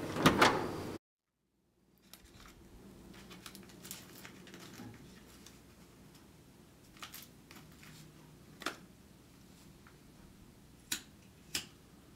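A loud sound in the first second cuts off abruptly into dead silence. Faint room tone follows, broken by a few sharp isolated clicks.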